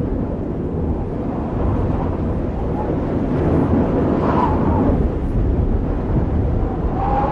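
Blizzard wind blowing hard and buffeting the microphone with a deep, steady rumble. A short whine sounds about four seconds in and again near the end.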